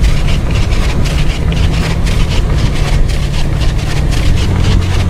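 Car engine running steadily under throttle, heard from inside the cabin, with tyre and road noise as the car pushes through snow.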